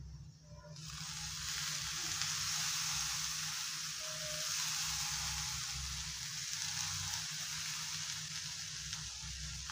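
Cubed potatoes frying in coconut oil in a hot nonstick pan start sizzling sharply about a second in, as lemon juice is squeezed onto them. The steady hiss swells over the next couple of seconds and eases a little toward the end.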